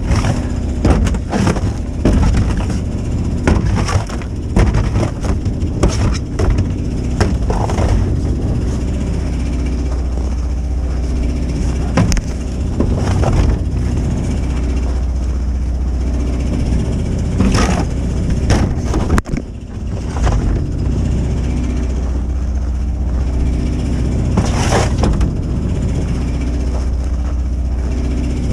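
An engine running steadily, with frequent knocks, cracks and clattering over it.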